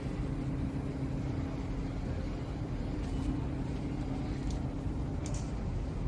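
Steady mechanical hum of running metal-processing machinery, with a steady low tone that fades out near the end and a few faint clicks.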